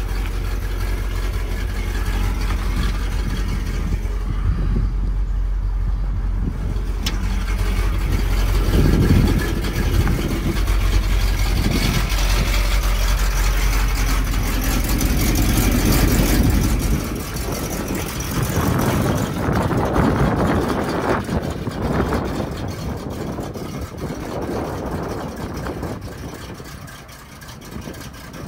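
1971 Chevrolet C50 dump truck's engine running, with its sound swelling and falling several times through the middle and the deep rumble thinning out after about seventeen seconds.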